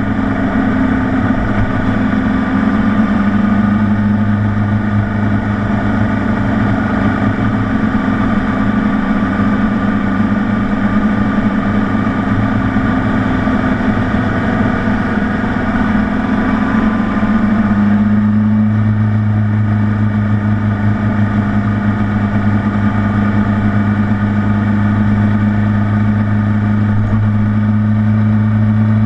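Honda CBR600RR's inline-four engine running steadily at low cruising revs, picked up from a camera mounted low on the front of the bike, under a rush of wind and road noise. About two-thirds of the way through, the wind and road noise eases while the engine note holds steady.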